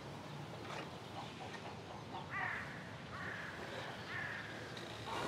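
A crow cawing three times, faintly, over quiet outdoor background.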